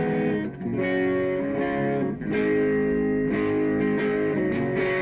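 Electric guitar through a distorted amp, played on a single-coil pickup with the guitar's volume knob rolled down, so the chords are only lightly distorted. Chords are struck and left to ring, changing about a second in and again a little after two seconds.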